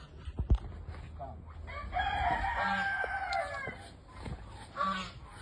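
A rooster crowing once, one long call of about two seconds starting about two seconds in, with a short cluck near the end and a sharp knock near the start.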